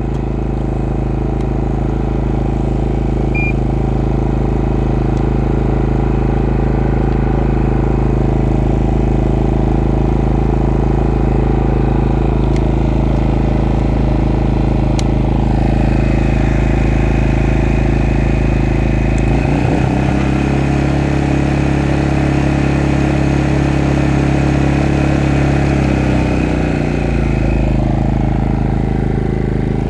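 Maxpeedingrods MXR 3500 inverter generator's engine running steadily, brand new and being run in. About two-thirds of the way through it revs up, holds the higher speed for several seconds, then settles back down.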